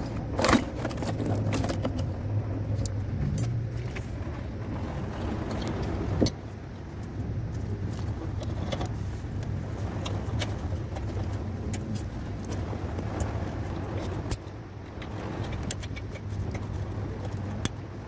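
A steady low machine hum, with scattered clicks and rattles from wiring connectors being handled behind a car's dashboard. Sharp knocks come about half a second in and about six seconds in.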